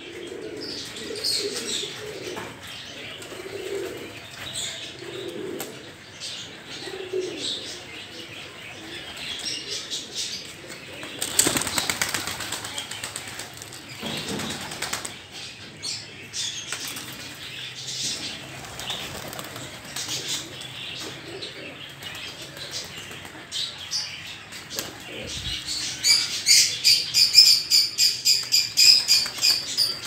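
Domestic pigeons cooing softly, then a burst of wing flapping about eleven seconds in as birds take off. Near the end a small bird gives rapid, repeated high chirps, about three a second.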